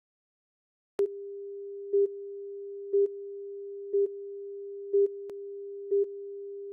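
Broadcast line-up tone from a commercial's countdown slate: a steady pure tone that starts about a second in, with a louder beep on every second marking the countdown to the spot.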